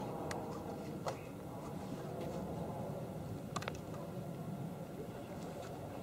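Steady low outdoor background noise with faint voices and a few light clicks.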